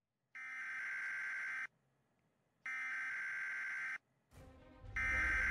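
An electronic phone-style ringing tone, three long rings about a second apart, with low intro music coming in under the third ring.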